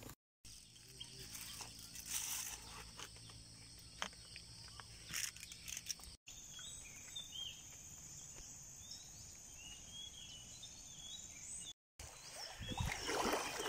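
Forest ambience: a steady high insect drone, with a few rustles and clicks in the first part and short repeated bird chirps in the middle. Near the end a kayak paddle swishes and splashes in river water.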